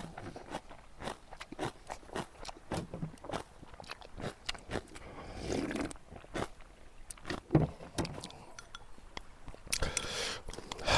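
Close-miked crunching and chewing of kimchi, a fast irregular run of crisp crunches several times a second.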